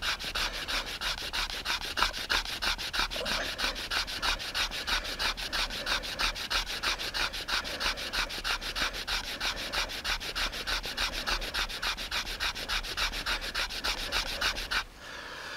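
Fire plough: a dead spruce stick rubbed fast back and forth in a groove along a flat spruce board, an even scraping at about five strokes a second that stops just before the end. The rubbing makes a little smoke, but not much wood dust collects.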